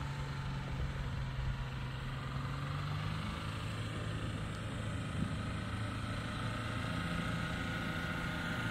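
Vehicle engine running steadily at low speed over a broad rumble. Its hum drops a little in pitch about three seconds in and rises again near the end.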